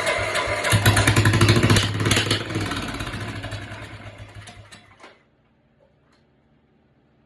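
Small lawnmower engine on a go-kart running, revving up about a second in, then fading and stopping about five seconds in.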